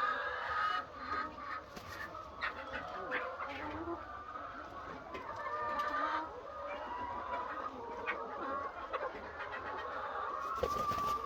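A large flock of laying hens clucking and calling over one another without pause, with scattered short clicks among the calls.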